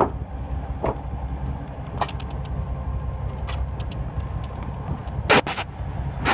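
Steady low drone of the fishing boat's engine running, with a few light clicks and a brief loud burst of noise about five seconds in.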